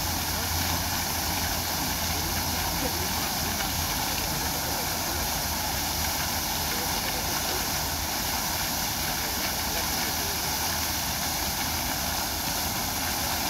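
Fountain jet splashing down into its basin, a steady, unbroken rush of falling water.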